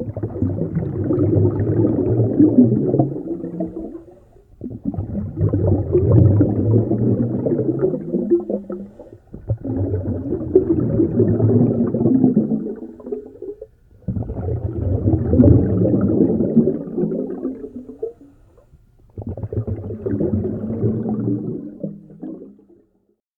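Scuba diver breathing through a regulator underwater: five long bubbling exhalations, each about four seconds, with short quiet pauses between breaths.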